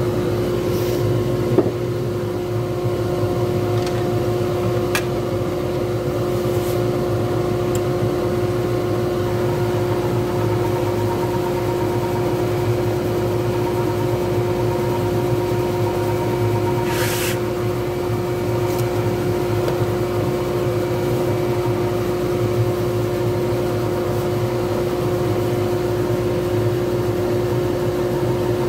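Wood lathe running steadily with a pen blank spinning between centres: a constant motor hum with a steady tone, and a brief hiss about 17 seconds in.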